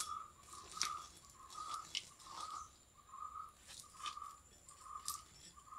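Sharp knocks and clicks of a knife and stick prodding at the wood fire and the charred tender coconut in a clay stove. A bird's short note repeats steadily, about once every 0.8 seconds.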